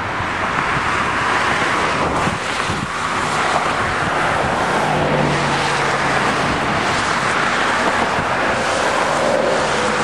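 CSX double-stack intermodal freight train rolling by: a steady noise of wheels on rail, mixed with wind on the microphone.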